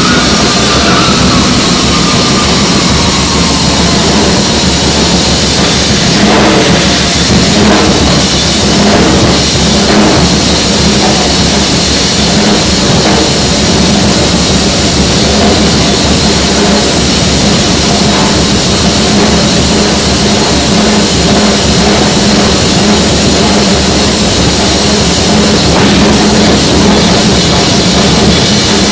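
Loud, dense live improvised music: a drum kit played without pause, cymbals washing over it, with saxophone and a brass horn blowing on top in one unbroken wall of sound.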